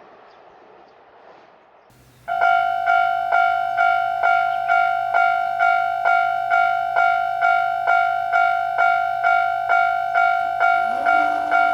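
Japanese railway level-crossing warning bell starting up about two seconds in, then ringing a steady electronic 'kan-kan' at a little over two strikes a second. It is the signal that a train is approaching. Near the end a low tone rises in underneath.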